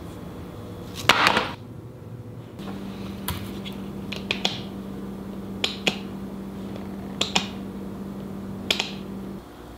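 A small stretched canvas dropped and clattering onto a stone countertop about a second in. After that, a plastic water bottle's flip-top lid is snapped open and shut over and over, in pairs of sharp clicks about every second and a half, over a low steady hum.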